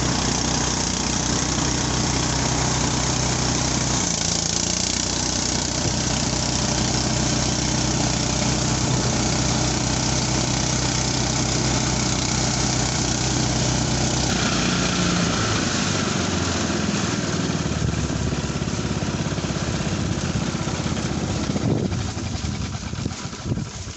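Small engine of a rice threshing machine running steadily at an even speed, its note shifting slightly a few times.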